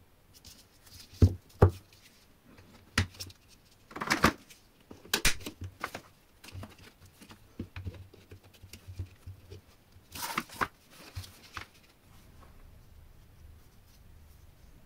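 Irregular knocks, clicks and short scrapes of small hard objects being handled. Two sharp knocks come just over a second in, with clusters of handling noise after about four and ten seconds.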